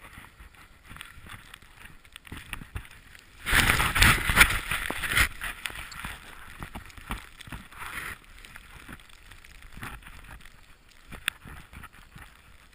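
Snowboard sliding through deep powder snow, heard on a body-mounted camera: a rushing of board on snow and air that swells to its loudest for about two seconds a few seconds in, then eases off, with scattered small knocks.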